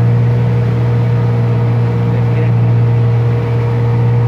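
Outboard motor of a small boat running steadily at cruising speed: a loud, even, low drone.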